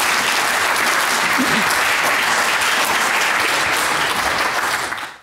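Audience applauding, a steady burst of clapping that dies away quickly near the end.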